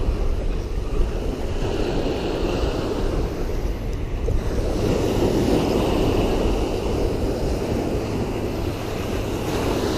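Steady wind buffeting the microphone, with small waves washing on the shore.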